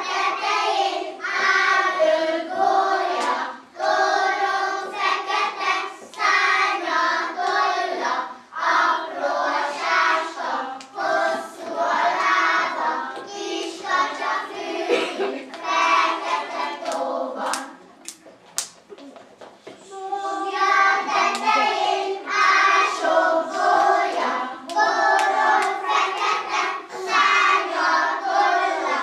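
A group of young children singing a song together, with hand claps through it. About two-thirds of the way in the singing stops for a couple of seconds, leaving a few scattered claps, then starts again.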